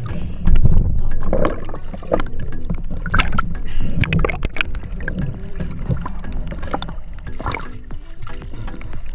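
Sea water splashing and sloshing around a diver at the surface as he moves through the water beside a boat, close to the microphone.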